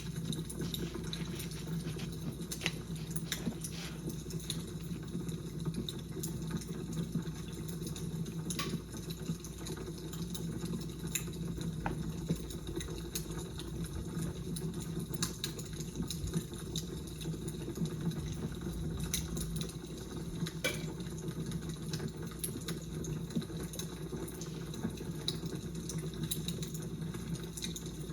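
Fire crackling: a steady low hiss with frequent irregular sharp pops and snaps.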